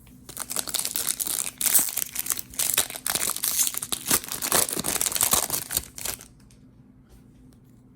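A foil trading-card pack wrapper being torn open and crinkled by hand, a dense crackling that stops about six seconds in.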